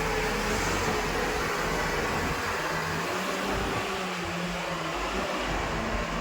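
Backhoe loader's diesel engine running steadily under work, with a faint hydraulic-type whine in the first few seconds.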